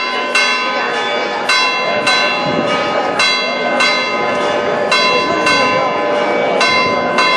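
Church bells ringing: about nine unevenly spaced strokes, each left ringing on into the next.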